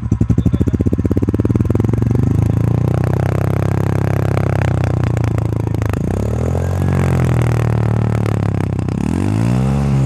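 TVS Radeon BS6's single-cylinder four-stroke engine and exhaust, going from idle into light revving. The revs climb a few seconds in, then rise and fall in two short throttle blips, one in the middle and one near the end.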